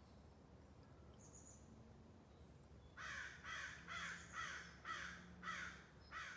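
A bird calling outdoors: a run of about seven calls, roughly two a second, starting about three seconds in after faint background.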